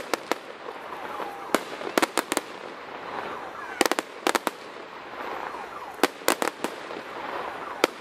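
Aerial fireworks shells bursting in a show: sharp bangs in quick clusters of two or three, about a dozen in all, over a steady background haze.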